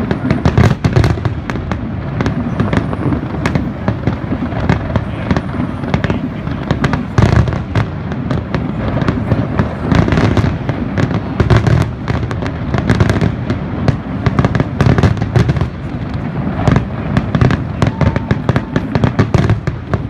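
Aerial fireworks going off in rapid, overlapping succession: many sharp cracks over a continuous low rumble of booms, with no pause.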